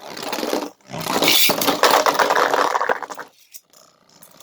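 Two Beyblade spinning tops, the 3D-printed Drahken Nexous and a Slash Valkyrie, scraping and clattering against each other and the plastic stadium, with rapid clicks of their hits. The noise is loud for about three seconds, then drops to faint scattered clicks as one of the tops ends up in a pocket of the stadium.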